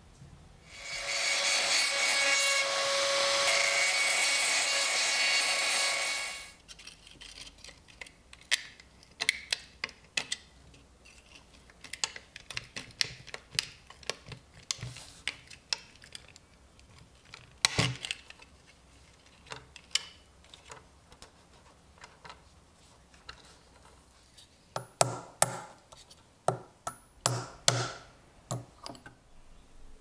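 A small power tool runs steadily for about five seconds, then stops. After it come scattered light clicks and taps of small metal knife parts handled on a wooden board, with a cluster of sharper taps near the end.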